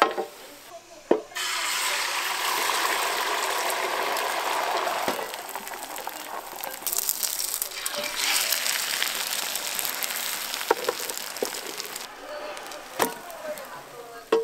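Food sizzling in a hot pan, loudest in the first few seconds, with scattered clicks and knocks of utensils.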